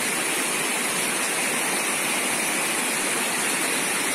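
Steady, even rush of water falling and cascading over rocks at a waterfall.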